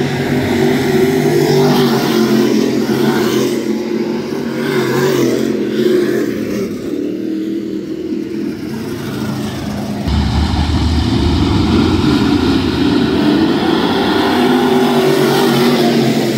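Dirt late model race cars' V8 engines running at racing speed around a dirt oval as the pack passes. The sound eases for a few seconds, then swells sharply about ten seconds in with a deep rumble as cars come past close by.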